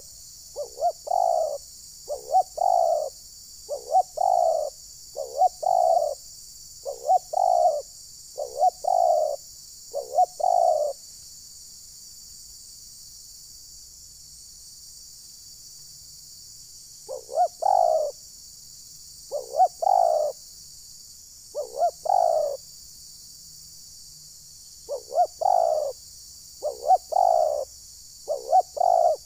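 Spotted dove (tekukur) cooing, a run of repeated phrases, each a short lead note followed by a longer coo. The bird calls steadily, falls silent for several seconds, then resumes about 17 seconds in. A steady high insect chorus runs underneath.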